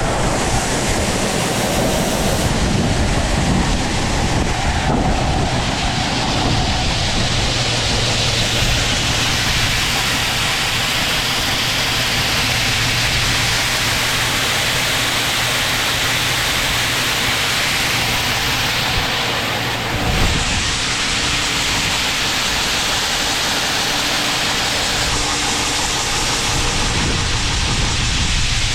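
Grain bin aeration fan running, a loud steady rushing drone with a low hum, while the bin is filled with corn.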